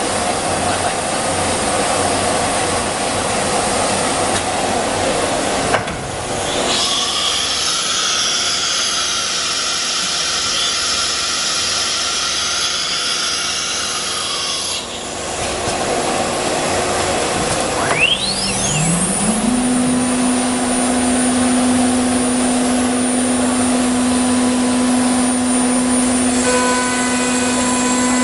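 1325 ATC CNC wood router at work, its spindle and gantry running with a steady machine noise while it machines a wood panel. A stretch of high hiss lasts several seconds. About 18 seconds in the spindle spins up with a rising whine and then holds a steady pitched hum.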